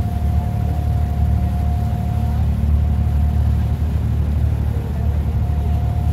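Inboard diesel engine of a wooden abra water taxi running steadily under way, a deep, even rumble.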